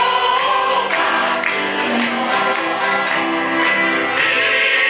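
Group sing-along of a Japanese popular song: a man and a woman singing into microphones with the seated room joining in, over accordion accompaniment and a jingling percussion instrument keeping the beat.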